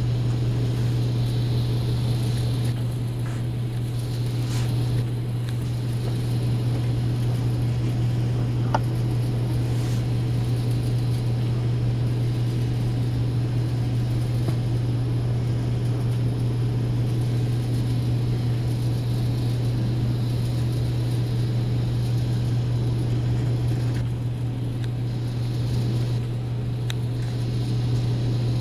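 A steady low hum, unchanged throughout, with a few faint ticks.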